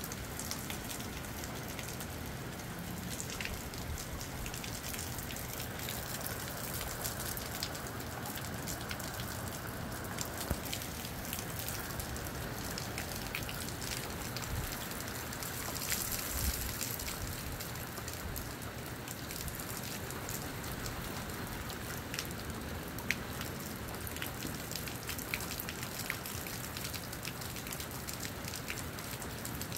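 Moderate rain falling steadily, with many close drops tapping and a few sharper drips. The rain swells briefly about halfway through.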